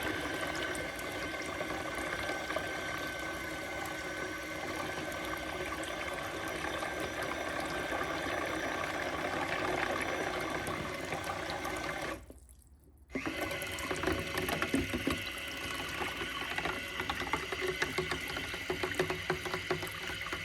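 Goser portable mini washing machine running submerged in a sink of water, churning the water with a steady faint motor hum. About twelve seconds in the sound cuts out for about a second, then resumes with more small clatter.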